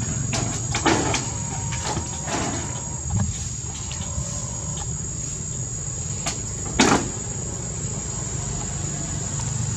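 A few sharp knocks and scrapes of macaques clambering and jumping on wooden roof beams, the loudest about seven seconds in. Under them run a steady low hum and a steady high whine.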